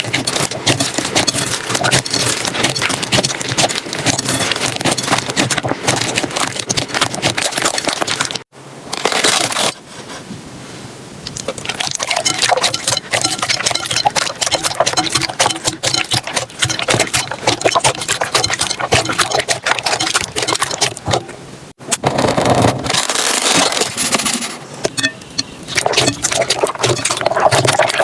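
Slime being squeezed and poked by hand, giving a dense run of quick crackling and popping clicks. The sound changes abruptly twice, about eight seconds in and again about twenty-two seconds in.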